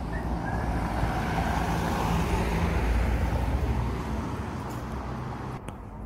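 A motor vehicle passing close by: engine hum and tyre noise swell to a peak about two to three seconds in, then fade.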